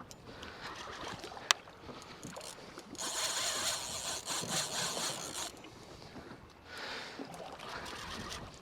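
Open-water noise on a small boat at sea, with wind and water hiss. There is a sharp click about a second and a half in. From about three seconds in, a louder rushing hiss lasts some two and a half seconds, and a softer one comes near the end.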